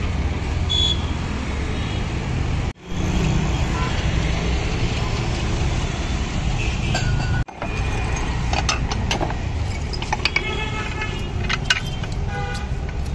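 Steady low rumble of street traffic, with glass soda bottles clinking and ringing as they are set into the metal cradle of a goli soda filling machine; a run of sharp clinks comes in the second half.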